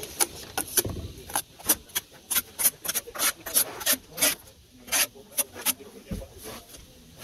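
Steel brick trowel scraping mortar along a concrete lintel and into the joint: a quick, irregular series of short scrapes, thinning out near the end.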